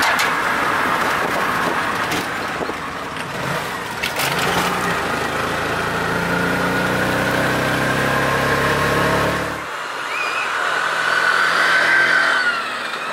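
Auto rickshaw (tuk tuk) engine running, heard from inside the open passenger cabin as it drives, its pitch rising as it speeds up. About two-thirds of the way through the sound cuts to a tuk tuk driving past in the street, its engine whine rising and then falling away.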